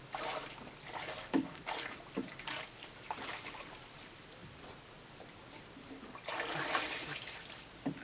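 Water splashing and trickling in short irregular bursts, then a longer rush of water about six seconds in.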